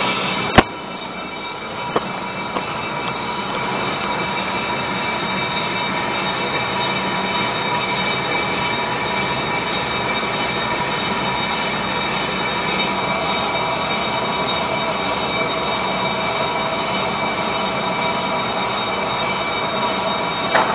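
Metal lathe turning a cast-iron brake disc: the cutting tool scraping steadily across the spinning disc face, a continuous cutting hiss with a ringing whine of several high tones. A sharp click sounds about half a second in, and a smaller one a second and a half later.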